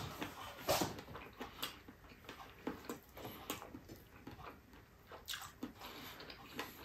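Close-up eating sounds: a man chewing with soft, irregular mouth smacks and clicks, about one a second, as he eats rice and octopus with his fingers.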